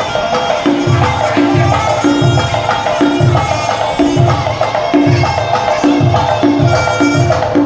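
Thai bua loi funeral ensemble playing: a reedy pi chawa oboe melody over a steady pattern of klong malayu drum strokes.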